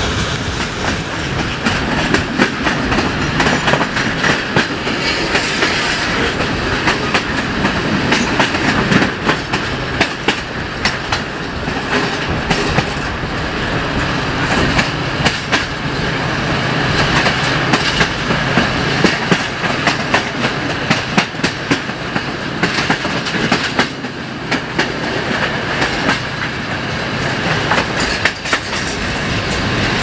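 Wheels of a passenger train's coaches clattering over the rail joints at speed, a dense run of clicks over a steady rolling rumble, heard loud through an open carriage window.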